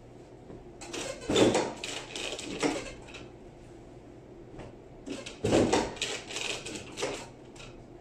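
A denim garment being shaken out and flapped by hand, cloth snapping and rustling in two bouts: one about a second in and another about five and a half seconds in.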